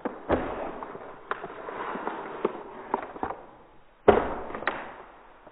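Paper packing and a cardboard box being handled, rustling with sharp crackles and clicks. About four seconds in comes a sudden loud knock, with a second, lighter one just after.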